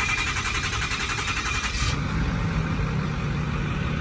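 Ford F450's Power Stroke diesel engine being started: the starter cranks with a rapid even chatter, the engine catches about two seconds in, and it settles into a steady, smooth and quiet idle.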